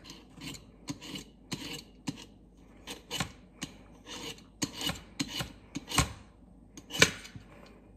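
Vegetable peeler scraping across a ball of ice in repeated short rasping strokes, shaving off fine snow-like flakes; the sharpest stroke comes about seven seconds in.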